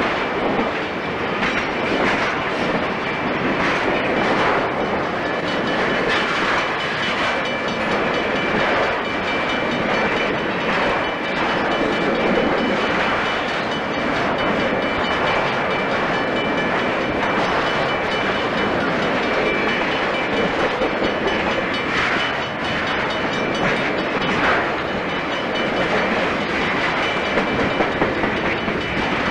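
Freight train of piggyback trailers on flatcars rolling past close by, with a steady rumble of wheels on rail and repeated clacks as the wheels cross rail joints.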